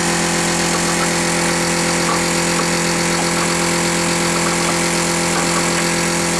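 Steady mechanical hum of a running motor: one unchanging low drone with a hiss above it.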